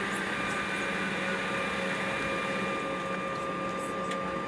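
Steady cabin noise inside an Embraer E190 taxiing, its jet engines at idle: an even hum with several steady whining tones layered through it.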